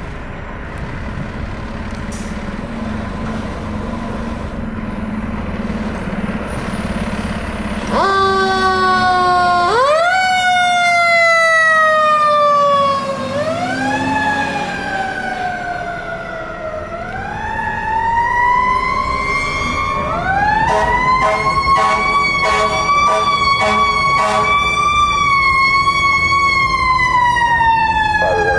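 Fire truck engine running, then about eight seconds in its siren wails: several times the pitch jumps up sharply and slides slowly down. Later the siren is held high with a run of short, sharp pulses over it, then falls away near the end.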